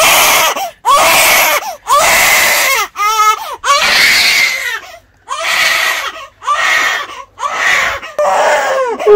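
Newborn baby crying hard: a string of about nine loud cries, each under a second long, with quick breaths in the short gaps between.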